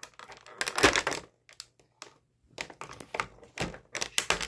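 Scissors snipping through stiff clear plastic toy packaging, with the plastic crackling and clicking in short clusters: about a second in, then again around three and four seconds in.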